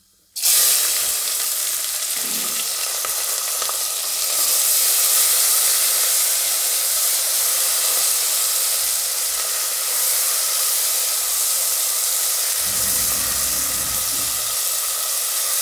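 Sliced onions sizzling in hot spiced oil in a pressure cooker: the sizzle starts suddenly as the onions hit the oil and keeps up a steady loud hiss while a silicone spatula stirs them, with some low scraping and rubbing near the end.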